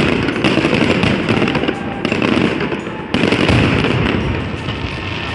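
A fireworks display: fountains and aerial shells crackling and popping in a dense, continuous stream, growing louder about three seconds in.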